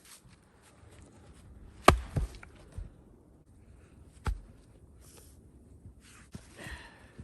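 Wood being struck, a few separate sharp knocks: the loudest about two seconds in with a smaller one just after, another a couple of seconds later, then a light rustle and crunch near the end.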